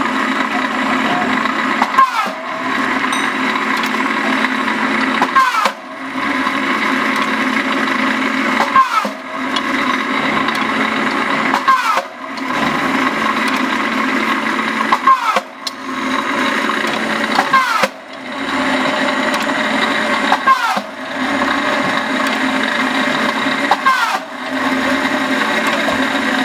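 GQ40A rebar cutting machine running steadily. About every three seconds a sharp clack sounds as the blade shears a steel bar, each followed by a brief dip in the running sound, about eight cuts in all.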